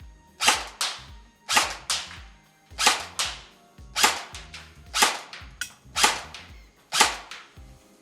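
Lancer Tactical LT-19 electric airsoft rifle (AEG) firing single shots on a 9.6 V battery with 0.3 g BBs: seven sharp cracks about one a second, each followed a third of a second later by a fainter crack.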